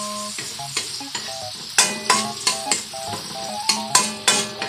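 Food sizzling in oil in an aluminium wok while a spatula stirs and scrapes against the pan. Background music with held notes plays over it, and from about two seconds in there are sharp percussion hits.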